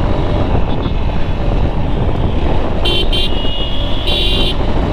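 Motorcycle riding along with a steady low rumble of engine and wind. About three seconds in, a horn gives two quick toots, then one longer toot a second later.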